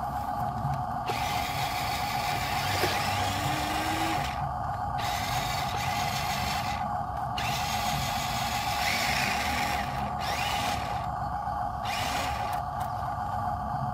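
Small electric motors and gearboxes of radio-controlled model trucks whining in repeated bursts of one to three seconds as the trucks drive in mud.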